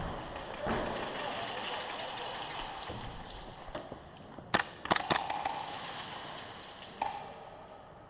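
Airsoft guns firing: a quick cluster of three or four sharp pops about halfway through, over a steady noisy background with fainter ticks.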